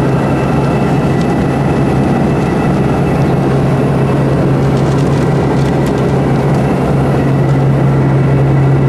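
Steady engine drone inside the cabin of a small airplane in cruise flight: a strong, constant low hum with fainter steady high-pitched whines over a rumbling roar.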